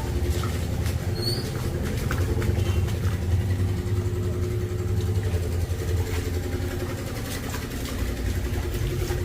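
An engine or motor running steadily at idle, a low even hum.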